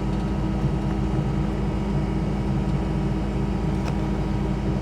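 Kubota SVL90-2 tracked skid steer's diesel engine running steadily, an even drone with no change in pitch.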